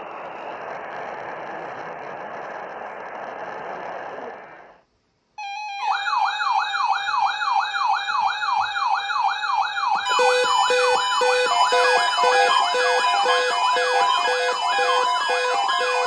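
A steady hiss of radio static that cuts off about five seconds in. Then a bank of NOAA weather alert radios goes off for the weather service's weekly test: a steady tone, then a warbling siren sweeping up and down about three times a second, and around ten seconds in more receivers join with steady tones and a pulsing beep, all overlapping.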